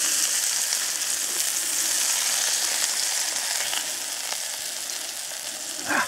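Minute steaks sizzling in hot oil in a small frying pan over a camping gas stove, a steady hiss with faint crackles that eases slightly in the second half.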